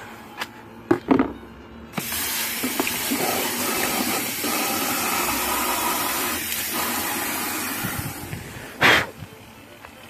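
Water poured into the wash tub of a Costway twin-tub mini washing machine: a few light clicks, then a steady gush of pouring water for about six seconds that starts suddenly and tails off, followed by a short loud knock.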